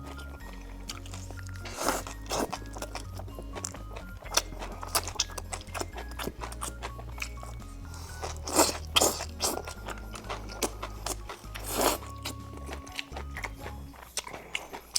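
Crunchy bites and chewing of deep-fried skewers, loudest about two seconds in, around nine seconds and near twelve seconds, over background music with a steady bass line.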